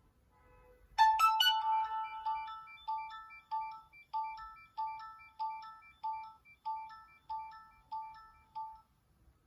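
Nokia 6260 mobile phone playing one of its built-in ringtones through its loudspeaker. The tone comes in loud about a second in and repeats a short electronic phrase of notes roughly every 0.6 s, then stops shortly before the end.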